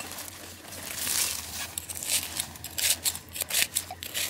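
A small metal hand trowel and gloved hand scraping loose, dry soil, with clods of earth crumbling and falling. It is a run of short gritty scrapes and crackles, with one longer scrape about a second in.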